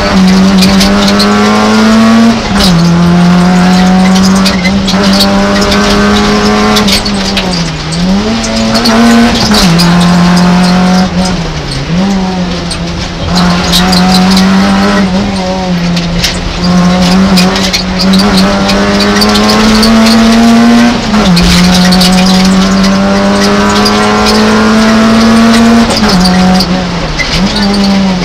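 Peugeot 106 rally car's four-cylinder engine running hard at high revs, heard from inside the cabin: the pitch climbs slowly and then drops briefly at several gear changes, about four times.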